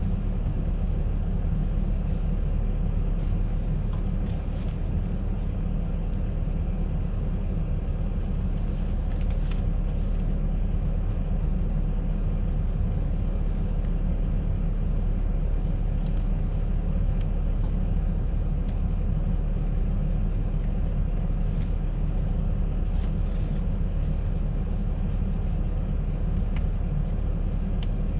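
Concrete mixer running steadily, a constant low mechanical rumble with a faint steady hum above it and a few light clicks.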